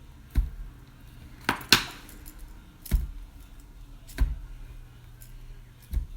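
Sharp plastic clicks and knocks of a fidget spinner being handled and flicked, about six in all, with a close pair about a second and a half in, over a faint steady low hum.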